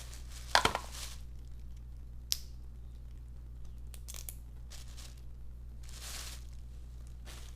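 Blue crab leg shells cracking and crunching as they are snapped and picked open for meat. A quick cluster of sharp cracks, the loudest, comes about half a second in. A single sharp click follows a couple of seconds later, then scattered cracks and a rustling crunch near the end. A steady low hum sits underneath.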